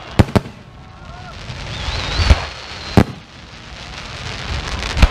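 Fireworks display: aerial shells bursting with sharp bangs, a quick pair just after the start, then single bangs about two and three seconds in and another near the end, with a hiss that swells up into the second-second bang.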